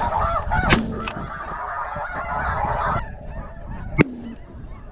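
Many snow geese calling at once, thinning out about three seconds in. Shotgun blasts cut through the calling: two close together about a second in, and another about four seconds in.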